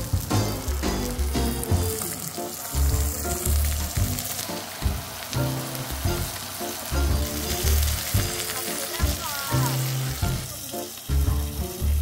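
Pork belly sizzling and frying on a hot round griddle pan, a steady hiss of fat spitting. Background music with a steady bass beat plays under it.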